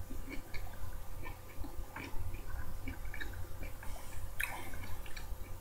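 Close-up chewing of orange segments: small, irregular wet smacks and clicks of the mouth, with one sharper smack about four and a half seconds in, over a steady low hum.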